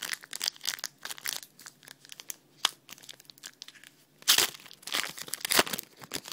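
Wrapper of a 2010 Panini Rookies & Stars football card pack being crinkled and torn open by hand: a steady crackle of rustling with two louder rips, about four seconds in and again about a second later.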